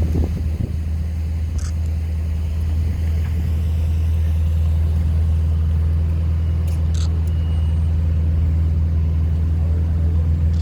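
Ferrari 488 Pista Piloti's twin-turbo V8 idling with a steady low hum, without revving. A couple of short, light clicks sound over it.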